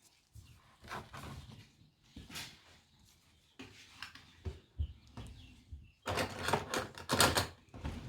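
Kitchen handling sounds: scattered knocks and clicks of utensils and dishes, turning into busier clattering near the end.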